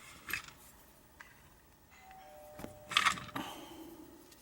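A mobile phone's ringtone: a two-note chime, a higher tone then a lower one, starting about two seconds in. A few sharp clicks from small metal lock parts being handled, the loudest cluster about three seconds in.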